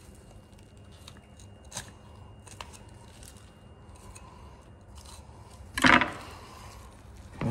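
Raw deer meat being peeled apart by gloved hands, with soft wet tearing and a few faint clicks. One short, loud sound comes about six seconds in.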